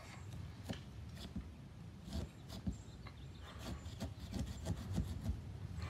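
Small pumpkin-carving saw cutting through a pumpkin's rind in short, irregular scraping strokes, over a steady low rumble.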